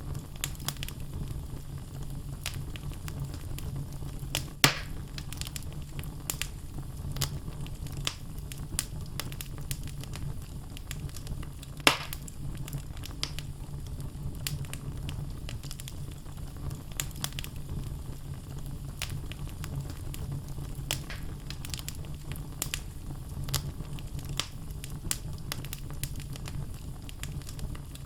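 Wood fire burning in a fireplace: a steady low rumble of flames under frequent small crackles of the logs, with two louder sharp pops, one about four and a half seconds in and one about twelve seconds in.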